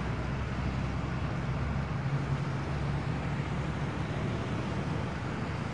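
Steady road traffic noise with a constant low engine rumble.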